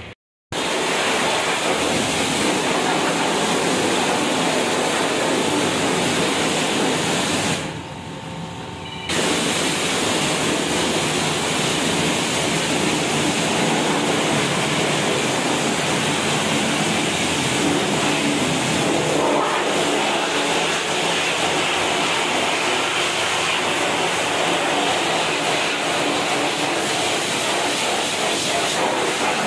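High-pressure washer jet spraying water onto a foam-covered motorcycle: a steady, loud hiss, which drops away briefly about eight seconds in.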